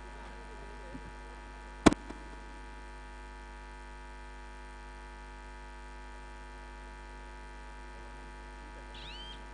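Steady electrical mains hum with several steady tones under it. There is one sharp click about two seconds in, and a short high chirp near the end.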